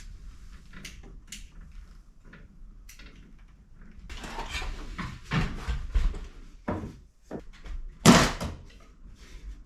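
Knocks, clatter and scraping of building work, with one loud knock about eight seconds in.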